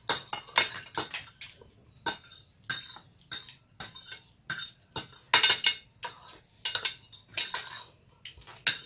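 Cutlery clinking and scraping against plates in quick, irregular strokes as people eat fast.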